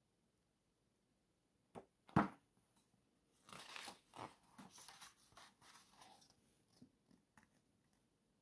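Two knocks about two seconds in, the second the loudest, then paper rustling as the pages of a booklet are handled and turned, with a few light taps near the end.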